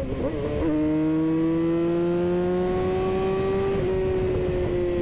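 Yamaha R6 inline-four through a Leo Vince GP slip-on exhaust, revving high under way. The note drops with a gear change about half a second in, climbs slowly, then dips and falls off slightly near four seconds in.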